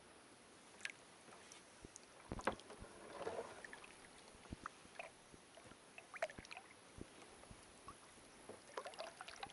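A kayak being paddled quietly: soft paddle dips and water drips with scattered light knocks on the hull, one sharper knock about two and a half seconds in, followed by a short swirl of water.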